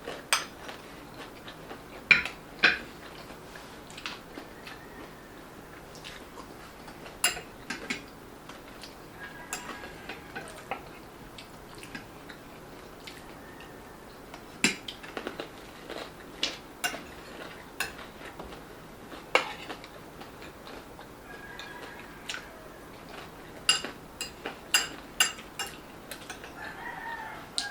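Mouth-close eating sounds: irregular sharp crunches of crispy fried dumplings being bitten and chewed, mixed with utensils clicking on dishes. A few faint drawn-out calls sound in the background, around the middle and later on.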